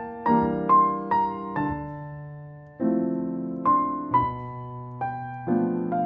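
Background music: a slow solo piano piece, single notes and chords struck and left to ring and fade, with one longer fading note a little before the middle.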